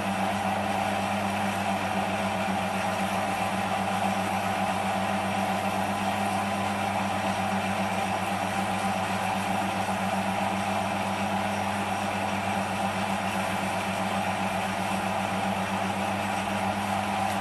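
Small metal lathe running at a steady speed, its motor and gears giving a steady hum, while wet-and-dry abrasive paper is held against the spinning workpiece to dress it.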